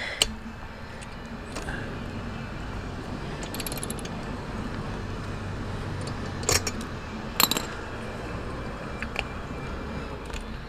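A handful of sharp metallic clinks from a wrench on the spark plug as it is tightened into a Suzuki dirt bike's engine, spread out over several seconds against a steady low background noise.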